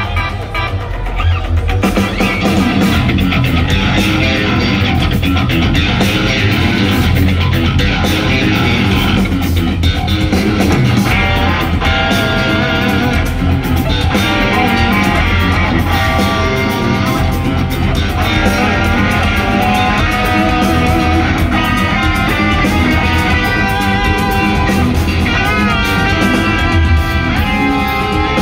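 Live instrumental progressive metal played loud by a band on stage: two eight-string electric guitars playing dense, fast picked lines over a busy drum kit. The full band comes in about two seconds in.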